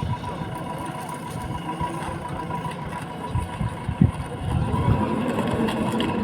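JCB 3DX backhoe loader's diesel engine running steadily, with a single knock about four seconds in and the engine getting a little louder near the end.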